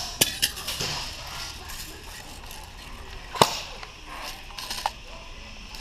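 Scattered sharp clicks and knocks over a rustling background. The loudest is a single crack about three and a half seconds in.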